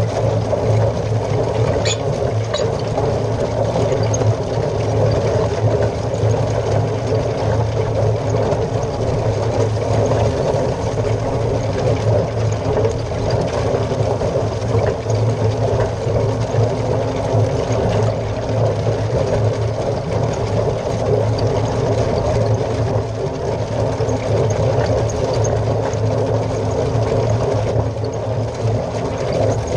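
Niemeyer RS 640 twin-rotor rake raking hay behind a Deutz Agrotron 120 MK2 tractor: a steady mechanical drone from the turning rotors and tines and the running tractor engine.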